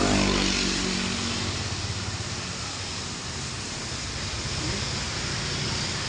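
A motorbike engine passes close by, loudest at the very start and dying away over the first second or two, over a steady hiss.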